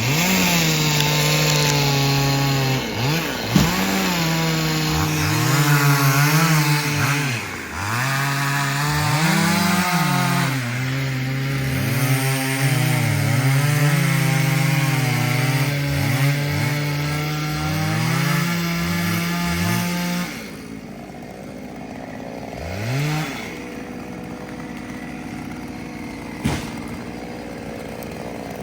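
Chainsaw running at high revs and cutting into a tree, its pitch dipping and climbing again and again as the throttle is eased and reopened. About two-thirds of the way in it drops to a quiet idle, revs up once briefly, and a sharp knock sounds near the end.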